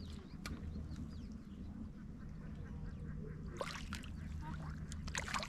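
Ducks quacking in two short bursts, about three and a half and five seconds in, over a steady low hum.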